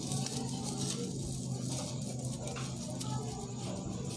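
Faint rustling and crinkling of a lemongrass stalk being bent and knotted by hand, with a couple of small ticks, over a steady low hum.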